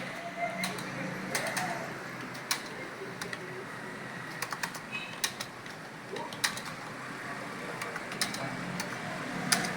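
Computer keyboard being typed on: irregular clicks of keystrokes, some in quick runs, others a second or more apart.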